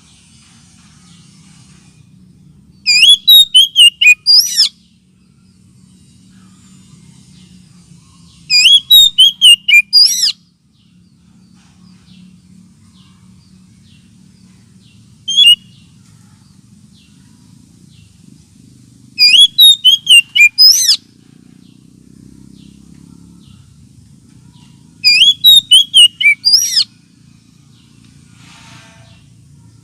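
Oriental magpie-robin (kacer) calls played as a lure: four loud bursts, each a quick run of about six sharp whistled notes, about every five to six seconds, with one single short note between them, over a faint low hum.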